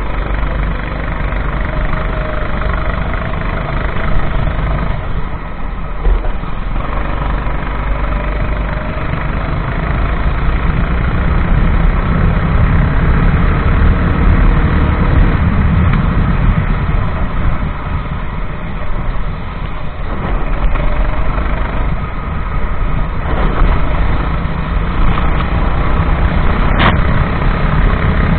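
Kart engine running under load, its pitch rising and falling as the kart speeds up and slows, under a dense rushing noise on the on-board microphone. A single sharp click sounds near the end.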